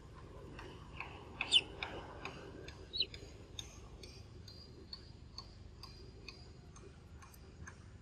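Faint irregular clicking, a few clicks a second, with a short high rising chirp about one and a half seconds in and a brief high squeak about three seconds in.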